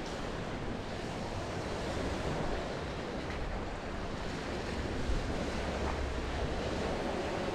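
Sea waves washing onto a shingle beach, a steady rushing, with wind on the microphone that gusts more strongly about five seconds in.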